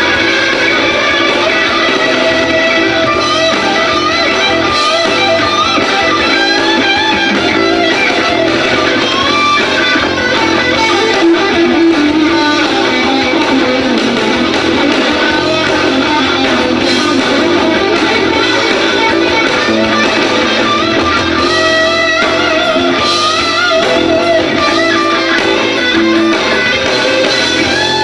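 Live rock band playing loud: electric guitar with bending, wavering notes over bass guitar and drums.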